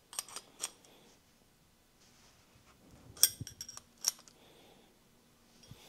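Sharp metallic clicks and clinks from a Speedflow hose fitting being fitted together and tightened onto a boost line: a few near the start, a quick cluster about three seconds in, and a single one about a second later.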